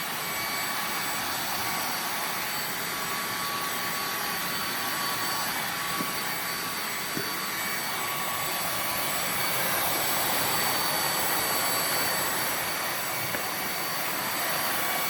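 Moosoo cordless handheld vacuum cleaner running on full power: a steady high motor whine over rushing air, with a couple of faint ticks around the middle as debris is sucked up.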